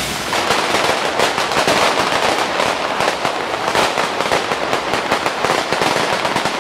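Ground fireworks crackling: a dense, rapid run of sharp cracks and pops, many a second, that sets in about a quarter of a second in and keeps going.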